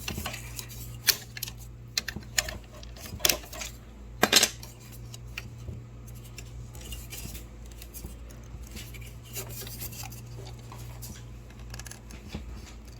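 Small hand tools clicking and scraping against the plastic latch and slot parts of a Memjet printer as they are pried loose: several sharp clicks in the first few seconds, the loudest about four seconds in, then quieter small ticks of fiddling.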